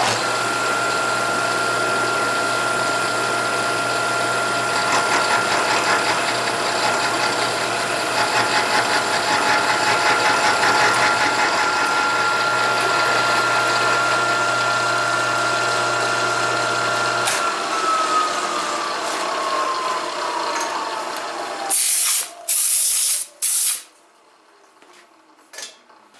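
Milling machine running and cutting metal, with a steady whine from the spindle; about 17 seconds in the spindle is switched off and the whine falls as it winds down. Near the end come three short loud blasts of noise.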